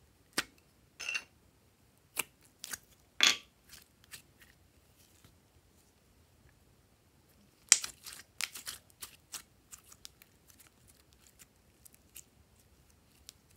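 Hands handling a plastic slime container, with a few sharp clicks in the first few seconds, then glossy slime being pulled and stretched, giving a dense run of sticky crackles about eight seconds in that thins to scattered pops.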